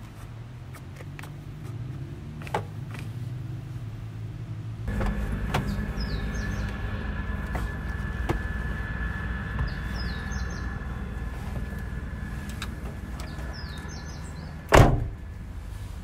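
A car's engine runs steadily from about five seconds in, with a thin whine over its low rumble. Birds chirp a few times, and a car door shuts with one loud thud near the end.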